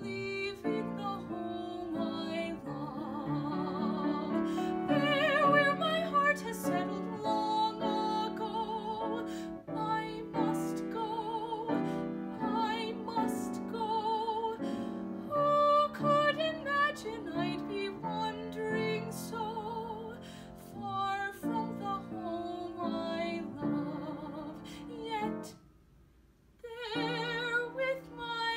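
A woman singing a solo with strong vibrato in an operatic style, accompanied by an upright piano. Near the end the music breaks off for about a second, then she sings on.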